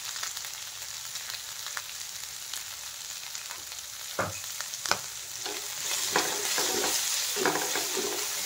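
Onion, potato, broccoli and peas sizzling in oil in a nonstick frying pan while a spatula stirs and scrapes through them. There are a couple of sharp knocks about four and five seconds in. The sizzle grows louder in the second half as the vegetables are tossed.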